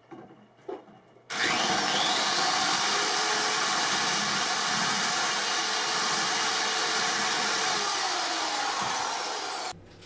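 Electric drill boring a hole up through the floor of a metal wall shelf. It starts with a rising whine about a second in, runs steadily for about eight seconds, and stops suddenly near the end.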